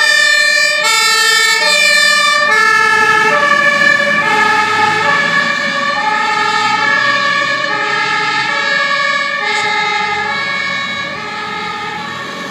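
German two-tone sirens (Martinshorn) of fire engines on an emergency run, alternating between a high and a low note about once a second as the trucks pass close by, with their engines running underneath. The sirens grow fainter near the end as the trucks move away.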